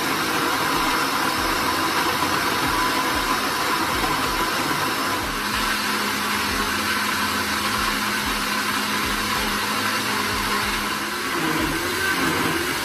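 Pink countertop blender running steadily at speed, its motor and blades pureeing chunks of papaya in liquid into a smooth juice.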